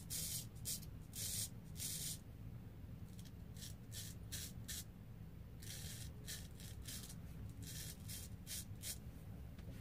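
Art of Shaving straight razor scraping through beard stubble on the neck and cheek: short rasping strokes in quick runs, with brief pauses between the runs.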